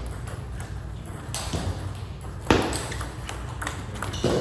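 Table tennis serve and rally: the celluloid ball clicking off the bats and the table in a quick series of sharp ticks, with a harder hit about two and a half seconds in.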